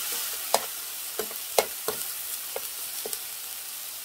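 Chopped onion and green onion sizzling in oil in a frying pan over high heat, frying down to make scallion oil. A metal spoon scrapes and clinks against the pan as they are stirred, about six times, then stops a little after three seconds in, leaving the steady sizzle.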